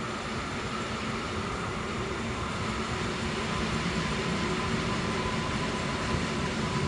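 Koleje Śląskie EN71AKS electric multiple unit drawing in to the platform: a rumbling train running sound that grows steadily louder as it approaches, with a faint whine that slowly falls in pitch.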